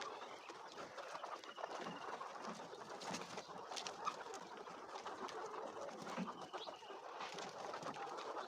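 A flock of laying hens clucking and murmuring continuously, with a few short higher calls and scattered sharp clicks.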